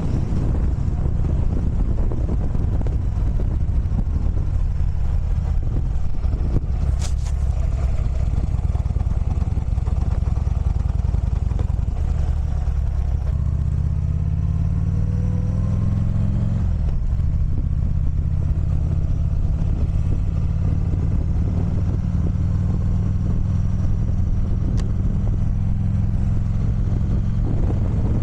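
Motorcycle engine running under way. About halfway through it revs up for a few seconds, drops in pitch at a gear change, then runs steadily.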